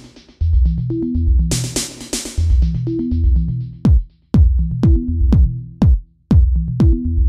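Electronic music: a drum-machine beat over a deep synth bass line. About four seconds in, punchy kick drums that drop sharply in pitch come in.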